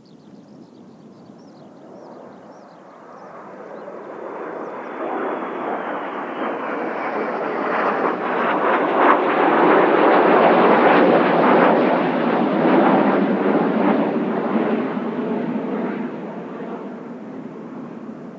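Turbofan jet noise of Blue Impulse Kawasaki T-4 aircraft flying past. It builds over several seconds, with a high whine sliding down in pitch as it approaches, is loudest about halfway through, and then fades.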